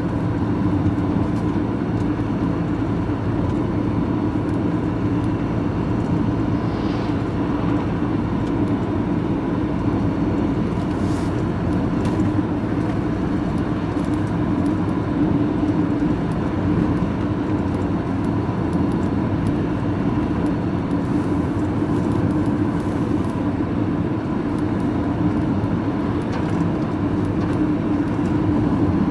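Steady engine and road noise from inside a moving vehicle's cab.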